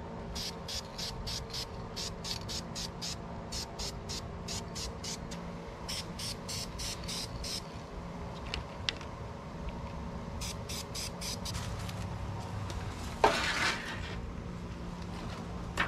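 Aerosol spray-paint can giving a short hiss through a stencil about 13 seconds in, the loudest sound. Around it, bouts of rapid, evenly spaced clicking, about three to four a second, over a low steady hum.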